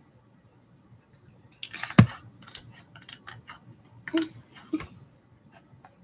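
A quick, irregular run of light clicks and taps close to the microphone, with one sharp, louder click about two seconds in.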